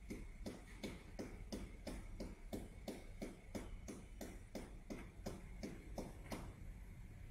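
Rhythmic clicking, about three evenly spaced clicks a second, that stops about six seconds in.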